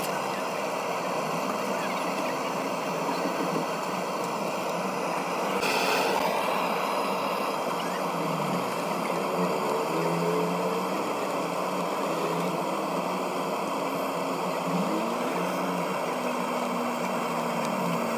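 Steady background noise of vehicle engines and traffic, with a few engine tones sliding up and down in pitch in the second half. A short hissing burst comes about six seconds in.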